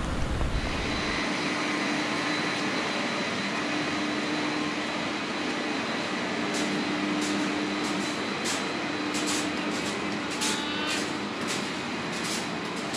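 Steady mechanical hum of rooftop building machinery, with a few constant tones in it. From about halfway through, footsteps clatter on steel grated stair treads, about two a second.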